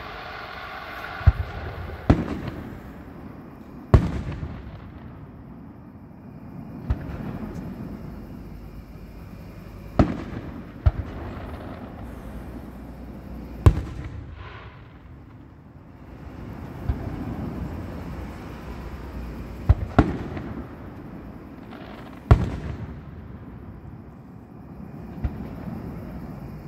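Fireworks going off: about a dozen sharp bangs at uneven intervals, two of them in quick succession, each trailing off in a low rumbling echo.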